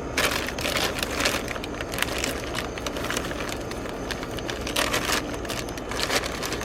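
Rustling and clicking of plastic lure packs and tackle being handled and dropped into a box, with frequent irregular clicks over a steady low hum.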